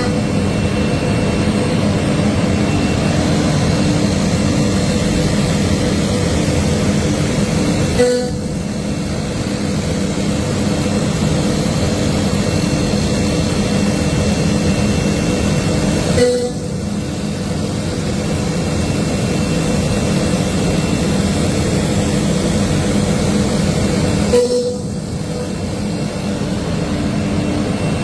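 CNC router spindle running steadily, with cutting noise and a hum of several fixed pitches. Three times, about eight seconds apart, a sharp click is followed by a drop in the hiss, which then slowly builds back.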